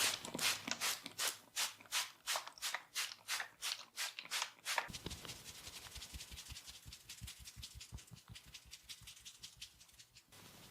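Massage slaps by hand, about four a second. About five seconds in they give way to a quicker, lighter patter of tapping strokes with dull thuds, which cuts off just before the end.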